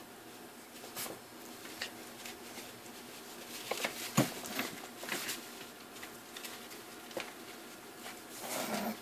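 Puppies' claws clicking and pattering on a tiled floor as they scuffle over rope toys, with a sharper knock about four seconds in. A short rustling scuffle near the end.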